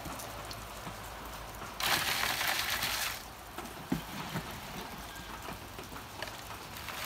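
Potting soil being scooped with a metal hand scoop and poured into a plastic plug tray: a loud gritty rustle about two seconds in that lasts over a second, then a light knock.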